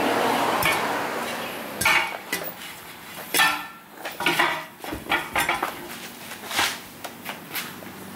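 Steel tyre lever clanking and scraping against a steel truck wheel rim as it is worked under the tyre bead to pry the tyre off. The clanks come irregularly, the loudest about three and a half seconds in.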